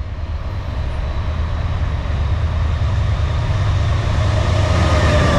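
Two GE Dash 9 diesel locomotives approaching under full throttle ("hammer down"): a deep, steady engine rumble that grows louder as the train nears, with faint high tones joining near the end.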